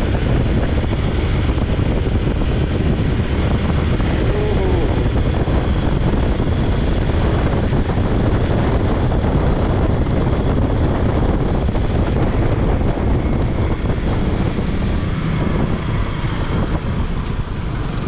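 Hero Xpulse 200's single-cylinder engine running steadily as the motorcycle is ridden, mixed with wind rushing over the microphone; it gets a little quieter near the end.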